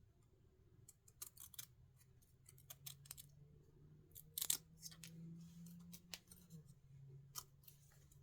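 Faint clicks and short scratchy sounds of small craft pieces being handled, irregular and loudest about four and a half seconds in.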